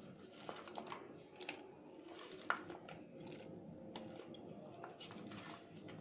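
Chopped onion pieces dropped by hand into a plastic bowl of boiled cauliflower and capsicum: scattered soft taps and clicks, with one sharper click about two and a half seconds in.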